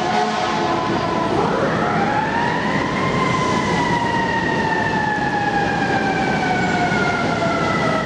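Fire engine's air horn holding a chord, cut off about a second in as a mechanical siren winds up over a couple of seconds, then slowly winds down in pitch, over steady truck and street noise.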